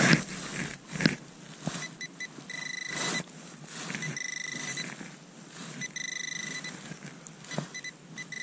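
Handheld metal-detecting pinpointer probed through a dug hole in soil, sounding a high, pulsing beep that comes and goes in bursts of about half a second to a second as it closes in on a buried target. Short scrapes and knocks of the probe and gloved hand working the dirt come in between, loudest at the very start and about a second in.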